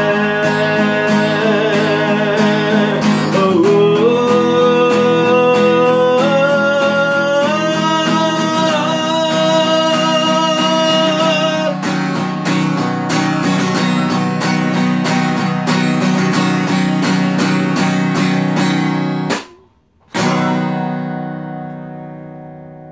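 Song outro on strummed acoustic guitar, with long held wordless sung notes for roughly the first half. About 19 seconds in the playing stops abruptly, then a final strummed chord rings out and fades away.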